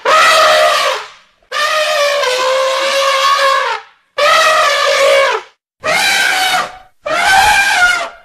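African elephant trumpeting: a run of five loud trumpet calls, each lasting one to two and a half seconds with short breaks between. The second call is the longest.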